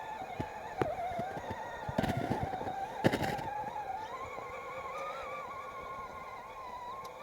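Electric motor and gearbox of a 6x6 RC scale truck whining as it drives over rough terrain, the pitch wavering with throttle and rising slightly about four seconds in. Several sharp clicks and knocks in the first half, from the wheels and chassis striking the ground.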